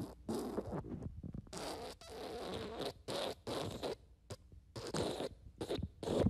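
Fart sound effects: a rapid string of short, raspy, sputtering bursts of uneven length with brief gaps between them.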